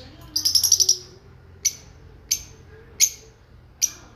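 Budgerigars chirping: a quick rattling chatter near the start, then four short, sharp chirps at fairly even spacing.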